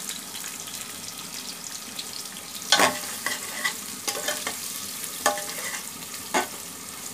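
Chopped onions sizzling in hot oil in a pressure cooker as they are stirred with a long metal spoon. The spoon knocks sharply against the pot's metal side several times, and each knock rings briefly.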